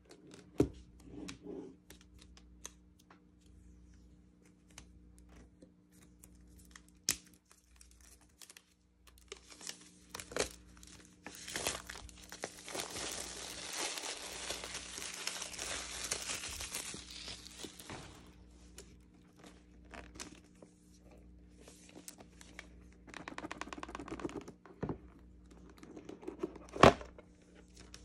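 Clear plastic shrink wrap being torn and peeled off a cardboard box, crinkling for several seconds through the middle and again briefly later. Scattered sharp clicks and knocks of the box being handled, with one loud knock near the end.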